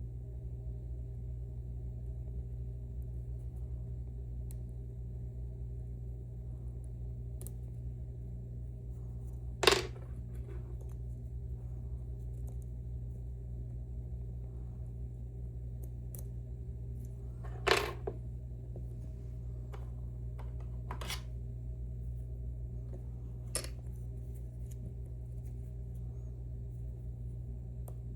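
A handful of sharp metallic clicks from lock-picking tools working a Mauer NW4 dimple lock, the two loudest about a third of the way in and a little past halfway, over a steady low hum.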